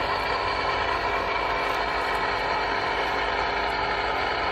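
Engine-driven water pump running steadily: a constant drone with several steady tones.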